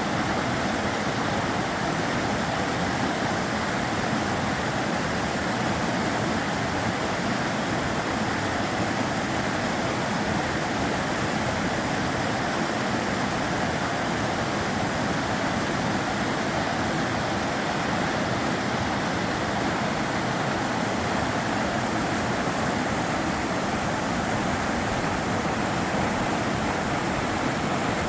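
The Sava River flowing, a steady, even rush of water.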